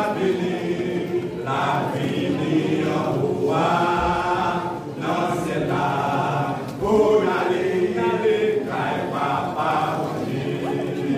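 Men's gospel choir singing together in phrases, the voices rising and falling between short breaks.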